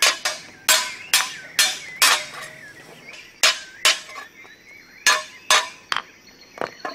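Hammer blows in quick runs of about two a second, each a sharp knock with a brief ringing tail, with a pause of about a second in the middle.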